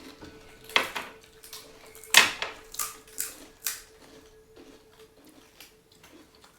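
Dishes and utensils being handled: a few sharp clinks and knocks, the loudest about two seconds in, followed by three lighter ones in quick succession.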